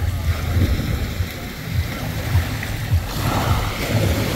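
Small sea waves lapping and washing up onto a sandy shore, with one wash swelling about three seconds in. Wind rumbles on the microphone underneath.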